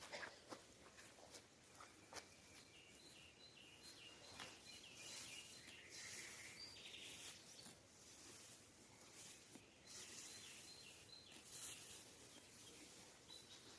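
Near silence: faint outdoor ambience with a bird repeating short, high chirps, and a few soft clicks.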